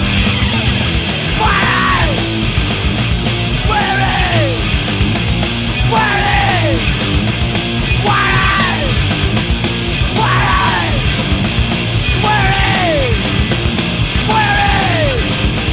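Hardcore punk song played by a full band, loud and dense throughout, with a high pitched figure that slides downward, repeated about every two seconds.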